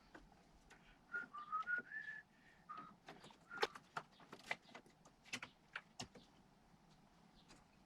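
A short run of whistled notes, stepping up and down in pitch, over scattered light clicks and taps.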